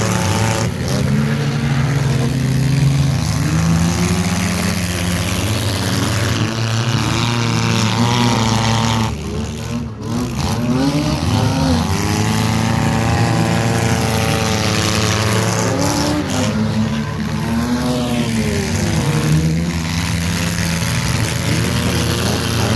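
Engines of several small stock sedans racing on a dirt track, running hard with their pitch rising and falling over and over as they accelerate down the straights and lift for the turns. The sound briefly dips about nine seconds in.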